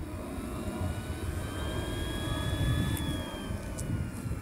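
Small RC model jet turbine running on the ground, its whine rising as it spools up, holding, then falling from about three seconds in as it is throttled back, over a steady low rush of exhaust.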